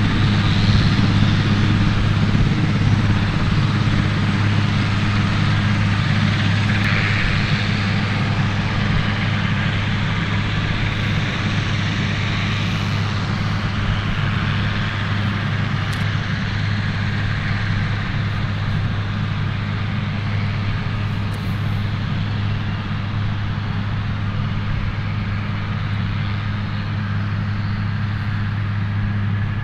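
Super Puma-family military transport helicopter taxiing on the ground with its main rotor turning: a steady low hum under a broad rushing turbine whine, easing off slightly in level as it moves away.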